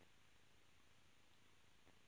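Near silence: faint steady hiss.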